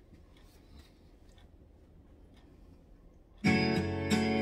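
Recorded music led by strummed guitar starts abruptly about three and a half seconds in and plays on loudly; before it there are only a few faint clicks over a quiet room.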